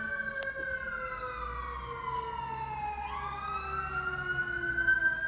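Fire siren wailing in a slow rise and fall: it peaks early, slides down in pitch for about two seconds, then climbs again from about three seconds in.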